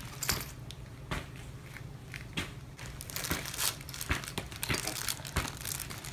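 A small clear plastic bag of craft supplies crinkling as it is handled, with scattered light clicks and taps; the crinkling grows denser about halfway through.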